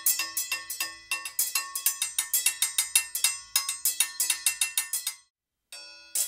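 Chimta, long steel tongs fitted with jingles, played in a fast rhythm: bright metallic clangs and jingling, about seven strikes a second. The playing breaks off about five seconds in and starts again after a short pause.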